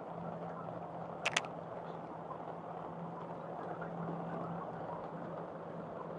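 Steady rain with a low hum underneath, and two quick sharp clicks about a second in.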